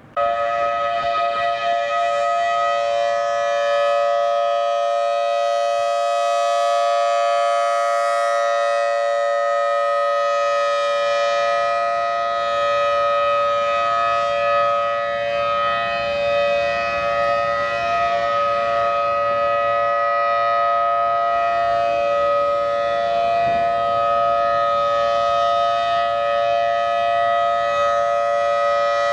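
Federal Signal Thunderbolt 1000T outdoor warning siren sounding a steady, level chord that holds its pitch, with slight swells in loudness. It comes on abruptly right at the start. This is an unexplained activation, not a scheduled test.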